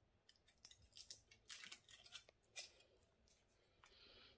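Wrapper of a beef stock cube crinkling and tearing as it is picked open with the fingers: quiet, irregular crackles, with a brief soft rubbing near the end.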